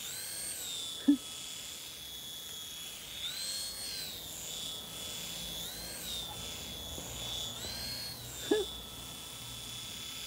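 Braha iFly toy helicopter's small electric motors and twin counter-rotating propellers whining steadily in hover, the pitch rising for a moment every few seconds as the motors speed up, the infrared sensor reacting to the hand beneath it. Two short, louder sounds cut in, about a second in and again near the end.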